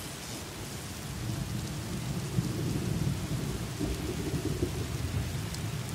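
Thunderstorm ambience: steady rain with a low rumble of thunder.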